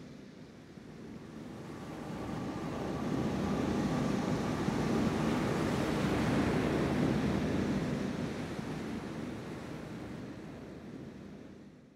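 A wash of ocean-surf sound that swells over the first few seconds, holds, then slowly fades away, with faint steady tones beneath it.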